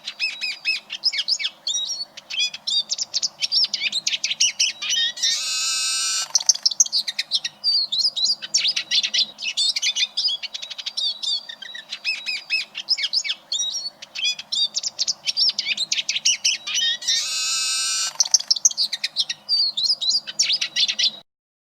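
Eurasian siskin singing: a fast, continuous twittering of high chirps and trills, twice broken by a long drawn-out note, then cut off abruptly just before the end.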